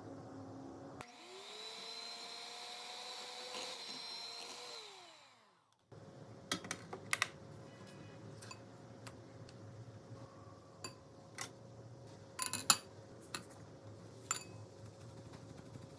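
An electric mixer runs for about four seconds, its whine rising as it spins up and falling away as it winds down. Then come a string of light clicks and taps of glassware and utensils.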